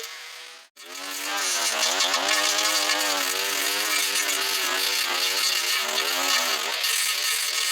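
Small two-stroke engine of a handheld power tool running at working speed, its pitch rising and falling again and again as it takes load. The sound cuts out abruptly just under a second in and comes straight back.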